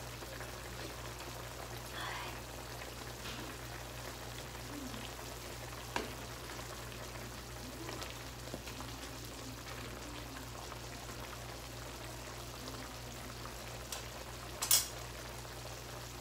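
Chicken sour soup simmering in a pan on a gas stove, a steady bubbling hiss over a low hum, with a wooden spoon stirring through it. A single sharp knock near the end.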